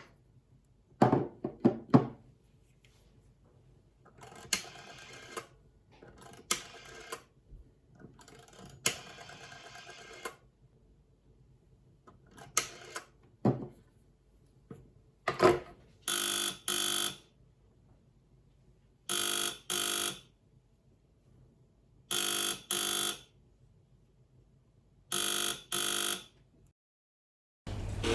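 CIT 1952 rotary-dial desk telephone: several clicks and the dial turned and running back three times, then its integral AC buzzer sounding in pairs of short buzzes, four pairs about three seconds apart.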